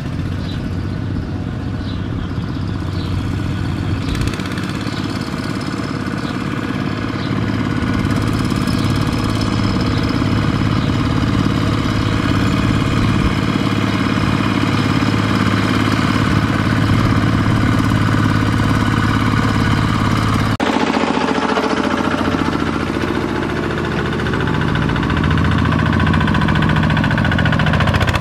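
Single-cylinder diesel engines of two-wheel walking tractors (power tillers) running steadily under load while hauling loaded trailers, growing louder as they come closer. The sound changes abruptly about two-thirds of the way through, then continues close up.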